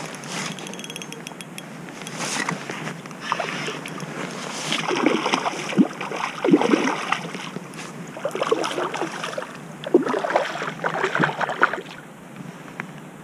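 A hooked fish thrashing at the surface beside a canoe while a spinning reel is wound in against it. The fish splashes in two bouts, about five and ten seconds in.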